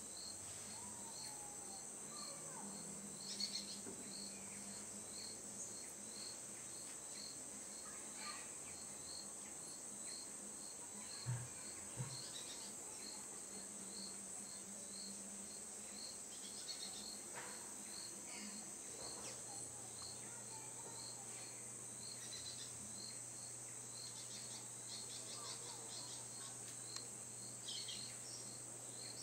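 Forest insects calling: a steady high-pitched buzz with a regular chirp repeating less than a second apart, and scattered short bird calls over it. Two soft low knocks about eleven seconds in.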